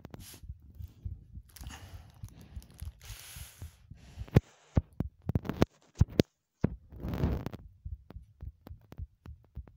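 Heartbeat recording: low thuds, overlaid with irregular sharp clicks and short bursts of hiss about one and a half, three and seven seconds in.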